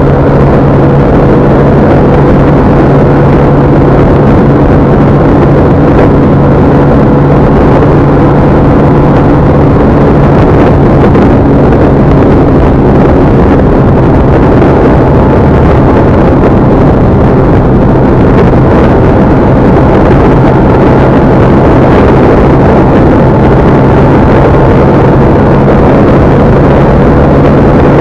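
Steady, loud vehicle engine and road noise while travelling, with a constant low hum and no change in speed.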